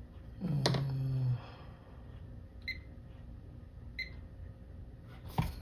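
Two short, high electronic beeps about a second and a half apart from a digital multimeter being set to diode mode. A brief hummed "hmm" comes just before them, and a sharp click near the end.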